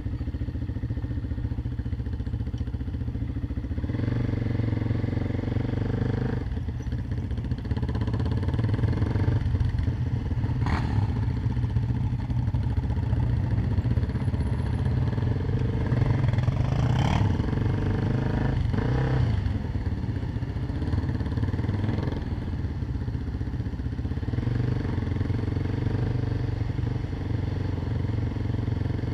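Engine of a bike ridden slowly, running steadily at low revs, with a few short clicks or rattles around the middle.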